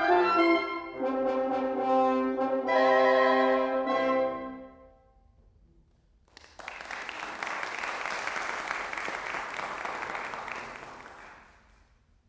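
Woodwind quintet of flute, oboe, clarinet, French horn and bassoon playing its closing chords, the last one ending about five seconds in. After a short silence, audience applause for about five seconds, dying away near the end.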